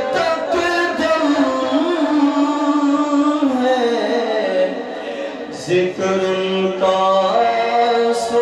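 A man singing a naat into a microphone, in long held notes that glide up and down between short breaths.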